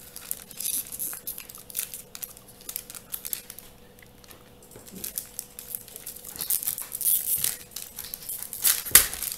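Shiny foil wrapper of a Topps baseball card pack crinkling and tearing as it is picked open by hand, in irregular crackles. The crackles ease off for a moment partway through, then come thicker and louder, with one sharp snap near the end.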